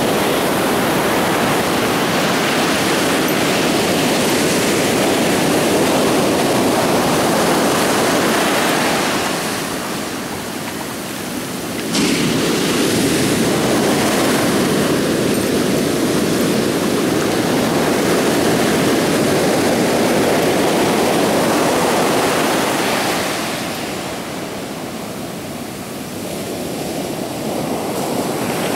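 Ocean surf washing in, a continuous loud rush of water with two brief lulls, and a fresh surge starting sharply about twelve seconds in.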